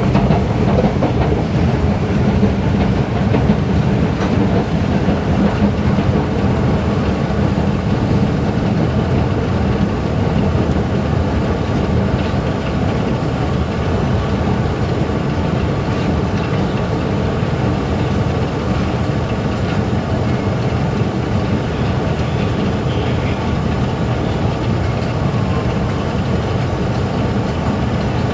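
Long escalator running: a steady mechanical rumble from the moving steps and drive, with a faint steady hum.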